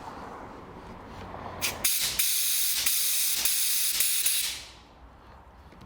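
A loud blast of compressed air or spray hiss, lasting about two and a half seconds with a few brief breaks, then fading out; most likely air blown through the dirty fuel sender unit and pickup pipes to find the blockage.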